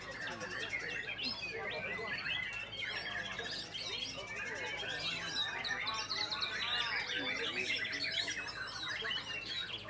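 White-rumped shama singing a fast, varied song of whistles, trills and chirps, with other caged songbirds singing over it so the notes run together without a break.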